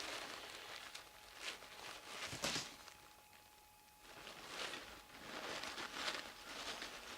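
Faint rustling and light knocks of dolls being handled and set in place, with one sharper knock about two and a half seconds in.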